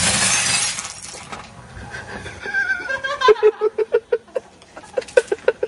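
A 17-inch Samsung 793s CRT monitor hitting concrete after a fall: a loud crash as it lands, with glass and plastic shattering for about a second. About three seconds in, a voice follows in a run of short, rapid bursts.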